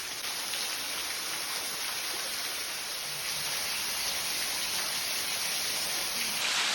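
Rushing water of a waterfall, a steady rush that grows a little louder and steps up suddenly near the end.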